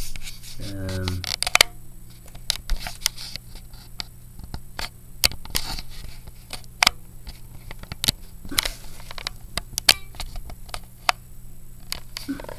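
Close handling noise: scattered sharp clicks and small scratching sounds at irregular intervals over a steady low hum, with a brief voiced murmur about a second in.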